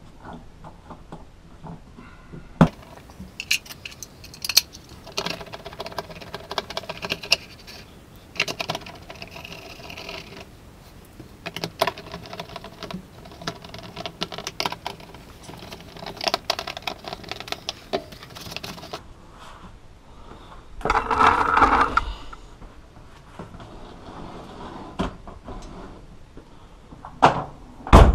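Hand work on a Lada Niva door trim panel: irregular clicks, taps and scraping of plastic trim parts and a screwdriver driving the armrest screws, with a denser scraping rush about three-quarters of the way through and a sharp knock at the very end.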